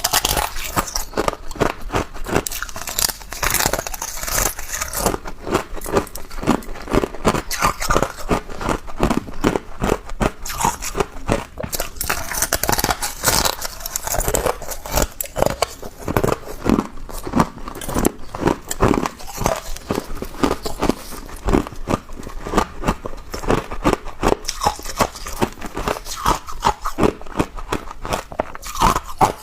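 A person biting and chewing ice: loud crunches following one another several times a second without a break.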